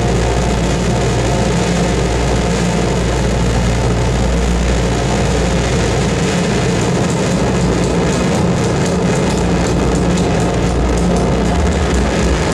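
Harsh noise played live through effects pedals and a mixer: a loud, unbroken wall of static over a low rumbling drone. The low rumble thins out for a couple of seconds about halfway through, and crackling grit in the highs picks up after that.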